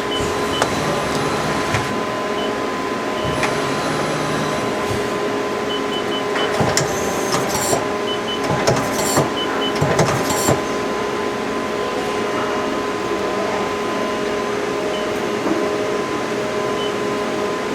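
Mori Seiki Frontier L1 CNC lathe running through its motions before the spindle is started, its axes and turret moving under servo drive. A steady machine hum runs throughout, with scattered clicks and short beeps, and a cluster of short, sharp mechanical bursts in the middle.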